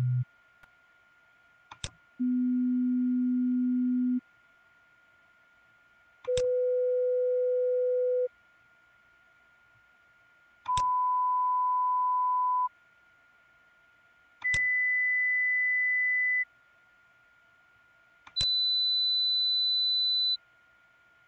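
Pure sine test tones at one constant sound pressure level, each about two seconds long with a click at its start, stepping up an octave at a time: 250 Hz, 500 Hz, 1 kHz, 2 kHz and 4 kHz, about two seconds apart, with the end of a 125 Hz tone right at the start. It is an equal-level tone sequence for showing that loudness depends on frequency: the tones are at the same level, but the higher ones up to about 1–2 kHz are heard as louder.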